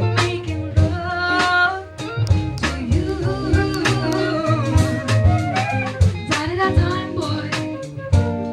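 Band music with drum kit and guitar playing a slow soul ballad, in a passage between sung lines, with a melody line gliding over steady drum hits.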